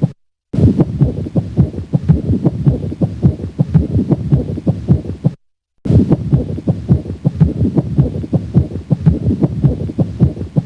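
Heart sounds at the cardiac apex through a stethoscope with a pericardial friction rub over them, the sign of an inflamed pericardium: a quick run of short, low knocks. The recording breaks off in a brief silence near the start and again about halfway through, then repeats.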